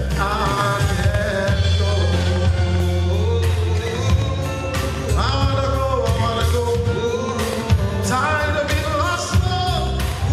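Live church worship band playing a song: a singer over bass and drums.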